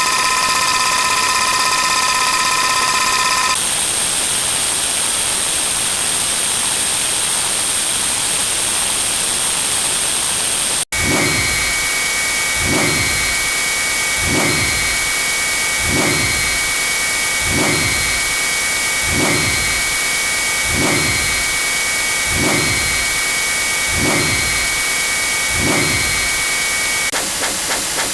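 Dense electronic noise hiss layered with several steady high-pitched tones; the set of tones switches about three seconds in. After a brief dropout about eleven seconds in, a low falling tone repeats roughly every one and a half seconds under a steady high tone, and near the end this gives way to rapid pulsing.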